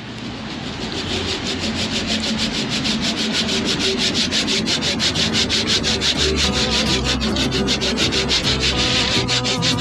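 Hand saw cutting through a thick timber post in quick, even strokes, fading in over the first second.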